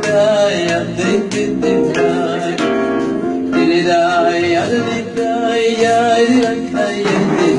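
A man singing into a handheld microphone over instrumental backing music.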